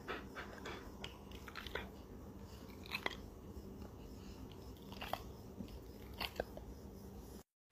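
Faint, scattered wet clicks and smacks from a Rottweiler's mouth as it relaxes under a head massage, the clearest about three and five seconds in.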